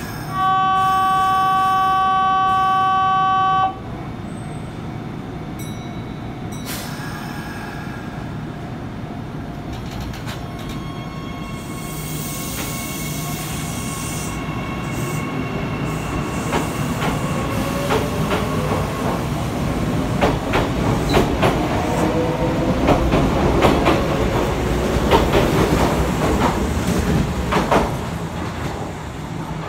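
Kintetsu 6422-series electric train, its underfloor traction equipment renewed, pulling out: a loud steady horn tone sounds for about three seconds near the start. Then the motors' whine climbs in pitch as the train gathers speed, with wheels clacking over rail joints, growing louder until the train passes away near the end.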